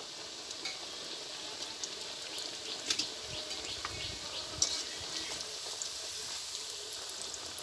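Kotkoti dough sticks deep-frying in hot oil in an iron karahi: a steady sizzle with scattered crackles and a few sharper pops. Near the end a slotted spoon stirs them in the oil.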